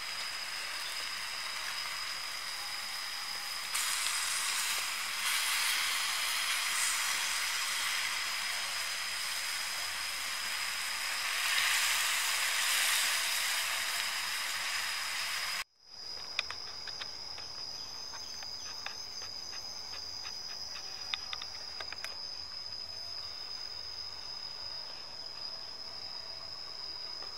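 Meat and vegetable skewers sizzling on a hot stone slab, a dense hiss that swells about four seconds in and again near eleven seconds. The sizzle cuts off abruptly a little past halfway, leaving insects chirping with a steady high tone and scattered light ticks.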